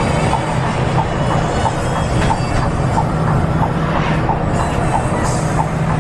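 Cabin noise of a tri-axle Scania K410iB coach under way: a steady engine and road drone, with a light tick repeating about three times a second.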